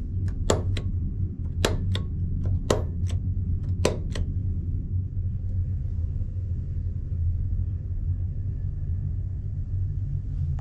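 A wall rocker light switch clicked about ten times in quick pairs over the first four seconds, over the steady low hum of the ferry's machinery carried through the cabin.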